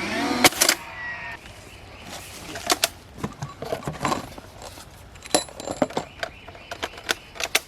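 Scattered metallic clinks and sharp knocks at uneven intervals, as of fencing wire and tools being handled, after a louder busy stretch in the first second or so.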